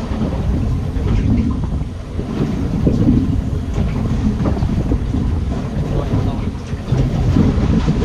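Wind rumbling and buffeting on the microphone over the wash of choppy sea around a small boat.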